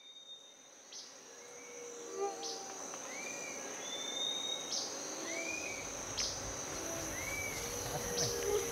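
Rural tropical ambience fading in: a steady high insect trill, with birds calling over it in repeated short arching whistles and brief sharp chirps every second or so.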